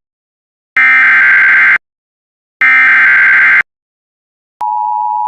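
Emergency Alert System header: two harsh, warbling bursts of SAME digital data tones, each about a second long and about a second apart. About four and a half seconds in, the steady EAS two-tone attention signal (853 and 960 Hz) begins.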